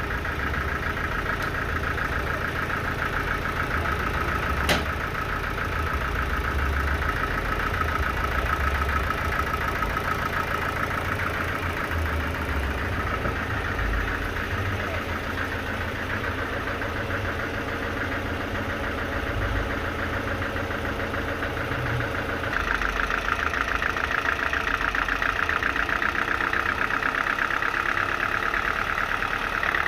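Sawmill machinery running steadily: a low engine drone with a high whine above it. There is a single sharp click about five seconds in, and the whine grows louder about three-quarters of the way through.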